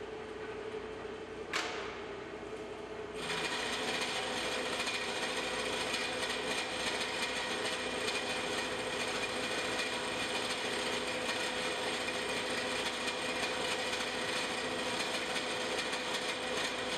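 Vertical milling machine's carbide insert shell mill face-milling a medium-carbon steel block with a light cut of about a tenth of an inch. The spindle runs with a steady hum, a single sharp click comes about a second and a half in, and from about three seconds in the cutter is in the steel: a steady, rough cutting noise with high ringing tones that stops near the end.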